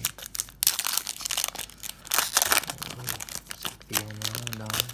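Foil wrapper of a trading card pack being torn and peeled open by hand: a dense, irregular crinkling crackle.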